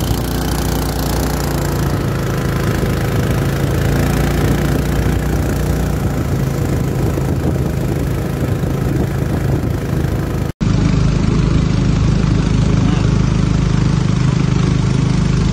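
Small boat's gasoline engine running steadily under way. A little past ten seconds in, the sound cuts off abruptly and another boat engine takes over, running with a steadier, lower hum.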